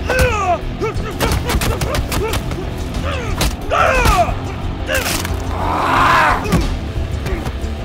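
Fight-scene audio: a quick run of sharp punch and impact sound effects with grunts and yells, over a film score with a steady low bass drone. A louder rushing swell comes about six seconds in.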